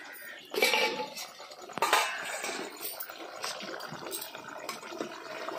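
Chicken curry boiling in an aluminium pot, a steady bubbling, with a couple of louder knocks in the first two seconds.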